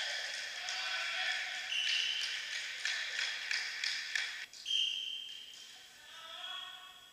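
Volleyball rally in an echoing sports hall: a run of ball strikes and short knocks, with brief high squeaks and players' voices calling out. The sound breaks off sharply about four and a half seconds in.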